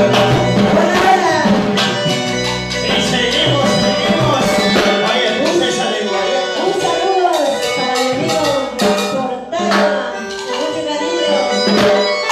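Live band music played loudly through a PA: an Andean harp with drums and percussion keeping a steady beat, and a woman singing into a microphone over it.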